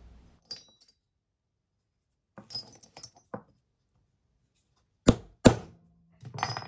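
Hammer striking a steel hole punch twice, about half a second apart, punching a hole through paper gasket material. Before that, a few light metallic clinks of steel tools.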